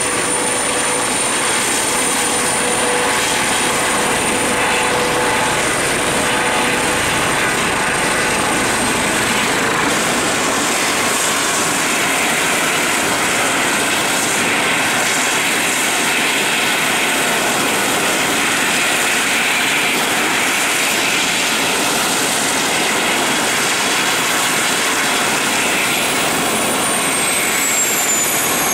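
Airbus Helicopters H135's twin turbine engines and main rotor running steadily as it comes down from a low hover and turns at idle on the ground, with a high steady whine that fades out about a third of the way in.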